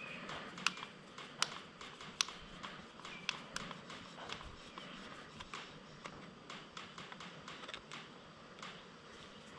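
Irregular light clicks and taps of hand tools at work on the race car's wiring, with a few sharper clicks in the first few seconds.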